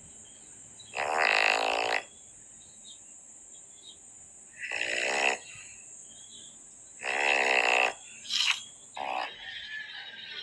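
Dog snoring very loudly: three long snores about a second each, some three seconds apart, then two short snorts near the end.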